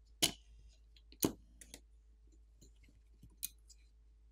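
Small sharp clicks as a plastic pry pick pops the rear camera's flex-cable connector off a smartphone main board and the camera module comes away. Two clicks about a second apart are the loudest, followed by a few fainter ticks.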